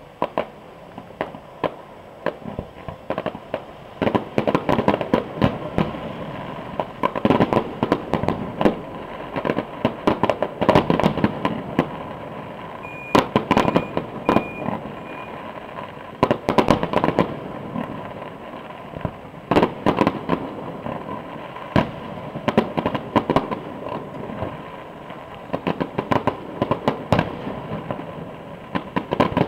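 Fireworks display going off: a continuous run of bangs and crackling from bursting shells, growing dense in several spells.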